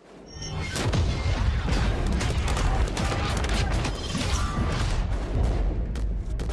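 Gunfire and explosions of a live-fire field exercise: a dense run of shots over a heavy low rumble. It starts just after a moment of silence, with music underneath.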